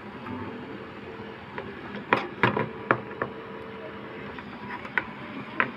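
Sharp clicks and knocks from handling equipment on a repair bench: a cluster about two to three seconds in and two more near the end. Underneath is a steady low hum with a faint held tone.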